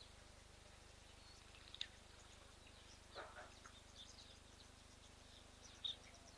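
Faint outdoor background with a handful of short bird chirps scattered through it, over a steady low hum.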